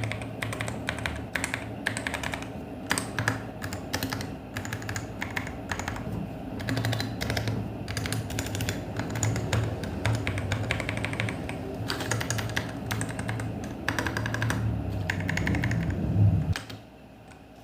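Ant Esports MK1300 V2 mechanical keyboard being typed on quickly in an irregular run of keystrokes, over a steady low hum. The board has been tape-modded and foam-filled, so the keys sound deeper ("THOCK") and less hollow. The typing stops near the end.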